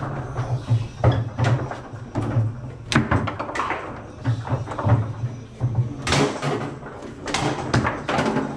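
Foosball table in play: sharp wooden-and-plastic knocks and clacks at irregular intervals as the ball is struck by the rod figures and rebounds off the table walls, over a steady low hum.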